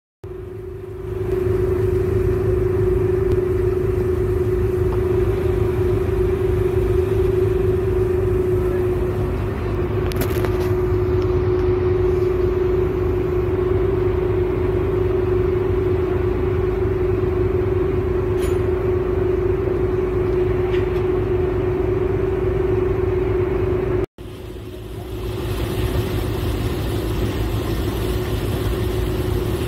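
Motor ferry's engine running under way: a steady low rumble with a constant hum on top. It drops out for an instant near the end, then carries on.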